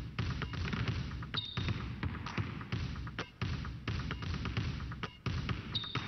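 Music with a strong, thumping bass beat, broken by short gaps every couple of seconds.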